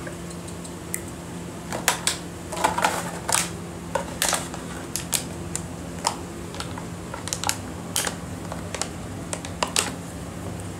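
Plastic bottle crackling and clattering in irregular clicks as a German Shepherd puppy chews it and paws it about on a concrete floor.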